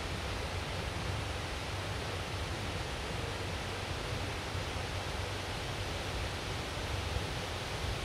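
Waterfall giving a steady rushing hiss, with a low, unsteady rumble underneath.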